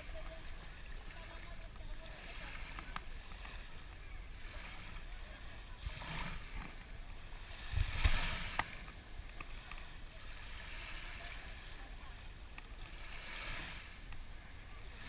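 Water washing and splashing against a boat or kayak in slow swells every two to three seconds, with a thump about eight seconds in.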